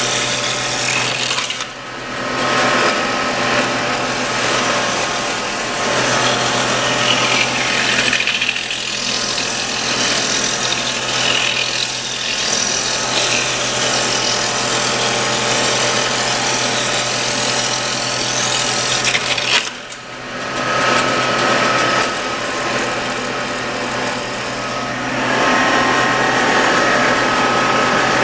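Caselli shovel handle and rod shaper running, its cutter head shaping a wooden rod fed through by hand and throwing off chips, over a steady motor hum. The cutting noise dips briefly about two seconds in and again around twenty seconds in.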